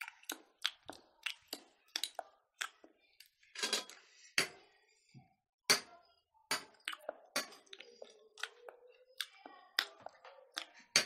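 Close-miked eating sounds: chewing and lip-smacking mixed with spoons clinking against plates and bowls, in a run of short, irregular clicks, a few each second.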